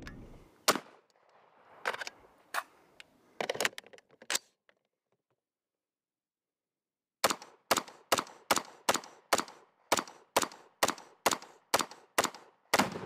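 Gunfire from an AR-15 carbine: a handful of separate shots over the first few seconds, then after a couple of seconds of silence a fast, even string of about fifteen shots, close to three a second.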